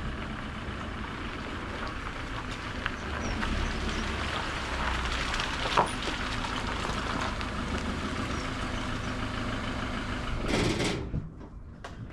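Tipper lorry's diesel engine running as the lorry reverses slowly, with one short sharp sound about six seconds in. The sound falls away suddenly near the end.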